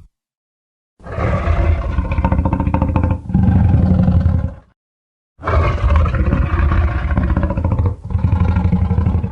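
Dinosaur roar sound effect: two long, rough roars of about four seconds each, each breaking off briefly partway through, with a short silence between them.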